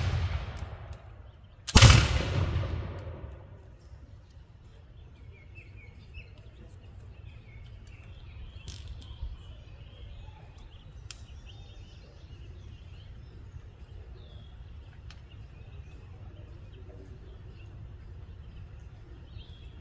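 Black-powder musket fire. The echo of one shot is dying away at the start, and a second loud shot comes about two seconds in, echoing for a second or so before it fades. Then birds chirp over quiet outdoor background, with a few faint clicks.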